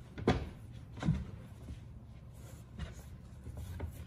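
A foam bunk cushion being pushed and shifted on a slatted bed frame, with two soft knocks in the first second and a few fainter bumps later, over a low steady hum.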